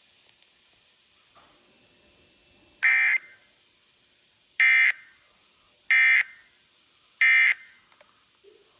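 Emergency Alert System SAME digital data tones: four short, buzzy data bursts about a second and a half apart, the end-of-message code that closes a broadcast weather alert.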